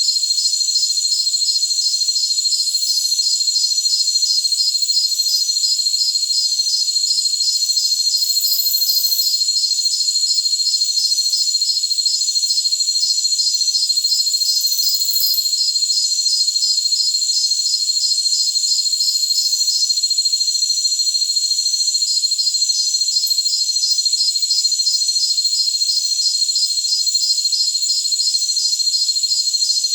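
Jungle crickets chorusing: a steady high-pitched trill with a fast, evenly pulsing chirp over it. The chirping drops out for about two seconds two-thirds of the way through.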